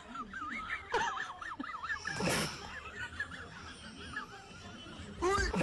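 A man snoring in his sleep, with two loud, noisy snores about two seconds in and near the end. High wavering chirps sound faintly in the background.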